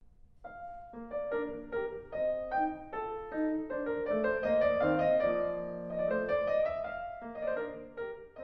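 Piano music: a melody of single notes over held chords, starting about half a second in.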